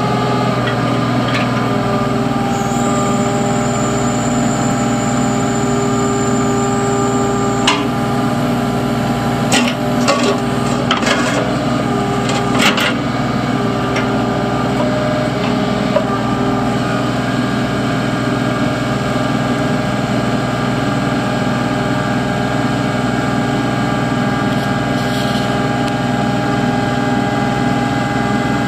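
A Kubota KX91-3 mini excavator's 28 hp Kubota diesel runs steadily while its boom, arm and bucket are worked hydraulically. A thin high whine holds for about five seconds near the start, and several sharp clanks come between about eight and thirteen seconds in.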